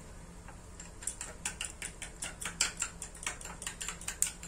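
Refined cooking oil heating in a nonstick frying pan on a gas stove, crackling with small irregular pops, several a second, starting about a second in.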